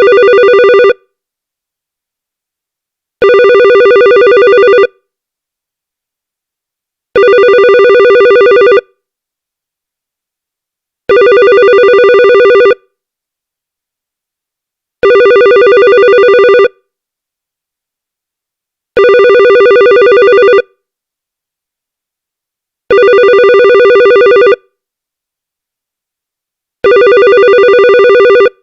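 Electronic telephone ringer warbling rapidly between two tones. Each ring lasts about a second and a half, repeating every four seconds with silence in between.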